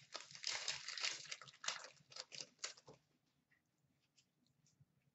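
Crinkling and tearing of a foil hockey card pack wrapper for about three seconds, followed by a few light clicks as the cards are flipped through by hand.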